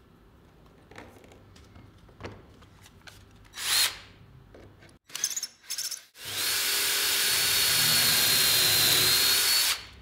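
Power drill boring into the chipboard edge of a mitred panel through a drill jig: a few light knocks and short bursts as the jig and bit are set, then the drill runs steadily with a high whine for about three and a half seconds and stops.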